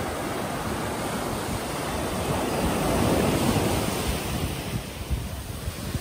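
Black Sea surf: waves breaking and washing up a sandy beach. The rush swells to its loudest about two to three seconds in, then eases off.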